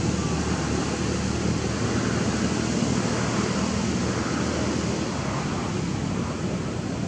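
Steady rushing background noise with a low rumble underneath, unchanging throughout.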